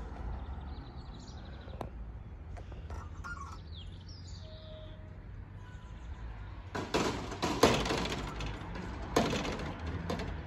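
Level crossing gate swinging shut across the road, rattling and clanking loudly from about seven seconds in, with a sharp knock a couple of seconds later as it comes to its stop. Birds chirp faintly earlier on.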